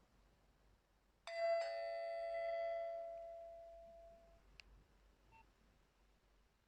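Nokia 2630 phone tone: a two-note bell-like chime, the second note struck just after the first, ringing out and fading over about three seconds, with a faint click after it.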